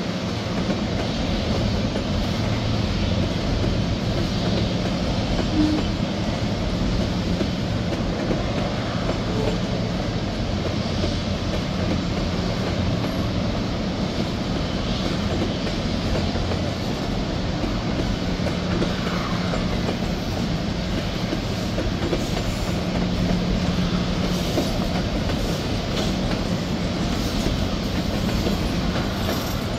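Freight train's tank cars rolling past, steel wheels running over the rails with a steady rumble.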